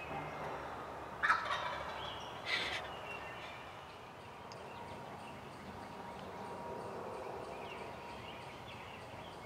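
Wild turkey gobbler gobbling: two loud calls, about a second in and again about a second later, then quieter woodland background.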